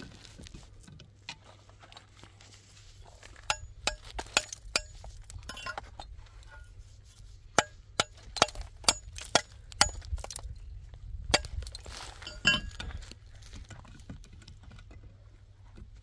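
Hard objects clinking together: sharp clinks, each with a brief ring, in quick runs about four seconds in and again from about eight to ten seconds in, over a low steady rumble.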